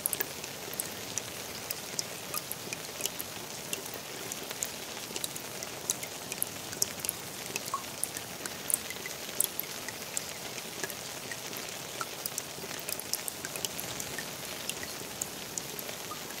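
Steady rain falling on a garden pond: an even hiss of rainfall with many sharp, separate drop ticks scattered throughout.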